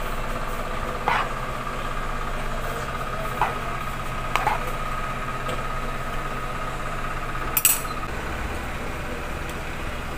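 Small spoons tapping and clinking against plastic cups and containers, a handful of light knocks spaced a second or more apart, the sharpest near the end, over a steady hum.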